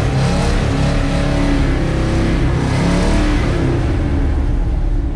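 Ford 460 big-block V8 in a 1950s Dodge M37 military truck being revved while parked, the revs climbing and dropping back a couple of times, heard from inside the cab.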